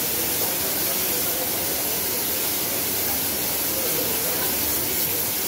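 Compressed-air spray gun hissing steadily as it sprays glaze onto a ceramic wash basin.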